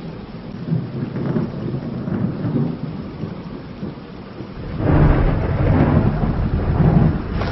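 Thunder rumbling over steady rain, with a louder, longer roll of thunder starting about five seconds in.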